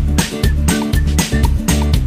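Upbeat background music with a steady, quick beat over a bass line.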